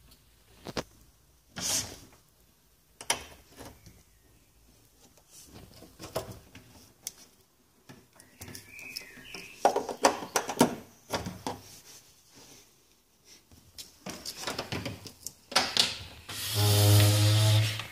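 Scattered clicks, knocks and rubbing as a Chromecast dongle and its cables are handled and plugged into a TV's HDMI port. Near the end comes a loud steady buzz lasting a little over a second.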